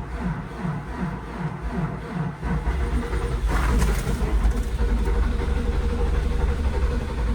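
Diesel engine being cranked by its starter in severe cold, turning over slowly in an even pulsing rhythm without starting; about two and a half seconds in it turns into a louder, steadier low rumble. The engine is too cold to fire and needs its block heater plugged in.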